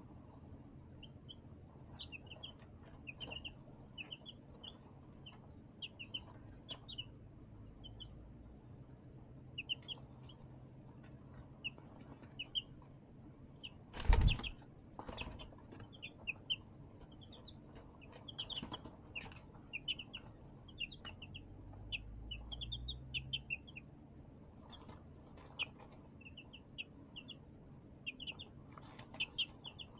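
Young chicks peeping: short, high chirps scattered throughout, with light rustling. A loud thump comes about halfway through, with a smaller one just after.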